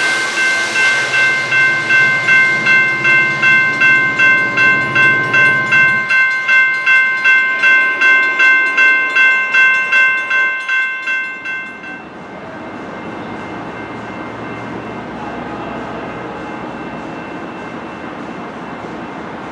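Railroad grade-crossing warning bell ringing in steady, rapid strikes, about two to three a second, with the low rumble of a just-passed passenger train fading beneath it. The bell stops abruptly about 12 seconds in, leaving a steady background hum of city noise.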